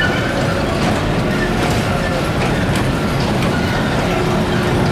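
Amusement-park ride running: a loud, steady rumble and rattle of ride cars rolling on their track.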